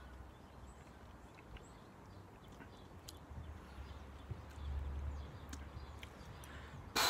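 Quiet outdoor background with a low wind rumble on the microphone that swells about four and a half seconds in, and a few faint ticks. Near the end comes a short, loud hiss.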